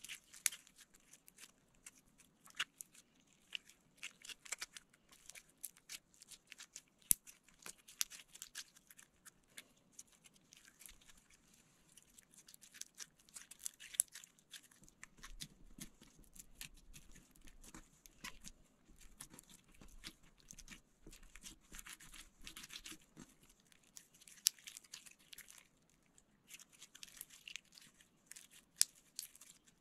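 White slime being stretched, folded and kneaded by hand with bits of clay mixed in, giving a constant stream of small sticky clicks and crackles.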